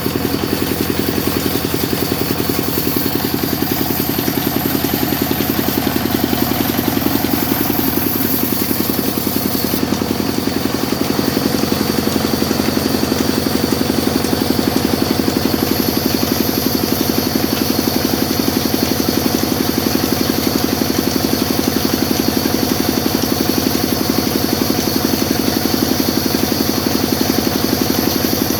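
Sawmill machine running with a steady mechanical drone.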